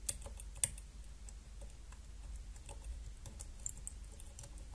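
Light metallic tapping and ticking of a flag pick on the pins of a Kale 164 BNE brass dimple-lock cylinder, with two sharper clicks in the first second and faint irregular ticks after. The lock's tight tolerances give almost no feel, so the pins are tapped slowly until they set on their own.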